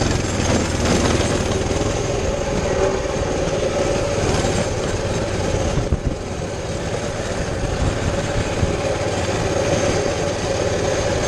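Baja 200cc minibike's single-cylinder engine running steadily as the bike is ridden, under a constant haze of wind and road noise on the helmet camera.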